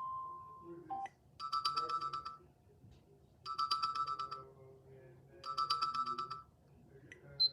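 Sony Walkman NW-A300 built-in tones played one after another: the last note of a rising chime, then a trilling ring sounded three times about two seconds apart. A short high beep starts the next tone near the end.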